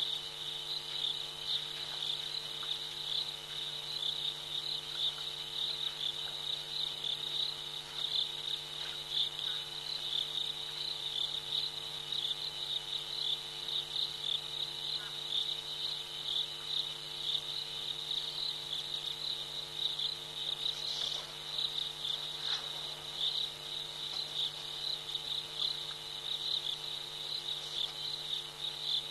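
A steady chorus of night insects, a dense high-pitched trilling that pulses rapidly without a break, over a faint steady low hum.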